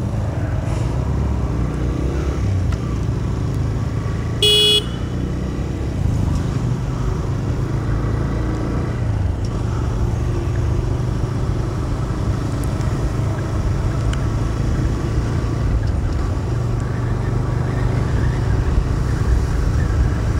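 TVS Raider 125 motorcycle's single-cylinder engine running steadily while riding, with road and wind noise. A horn beeps once, briefly, about four and a half seconds in.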